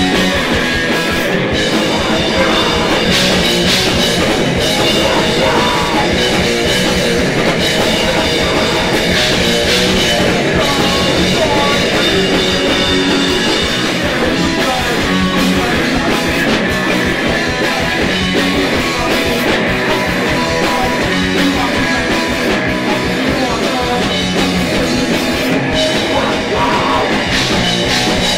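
Live punk rock band playing loud and without a break: electric guitar and a drum kit.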